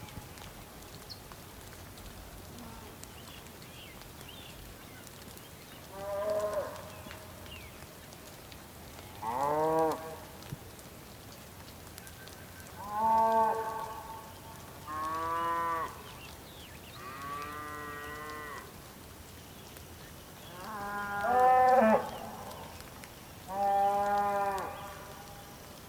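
Bulls bellowing, about seven separate moos a few seconds apart, each lasting about a second and rising then falling in pitch. A steady hiss runs underneath.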